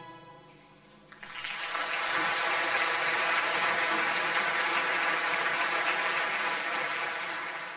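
A choir's final held chord fading away, then audience applause breaking out about a second in and going on steadily.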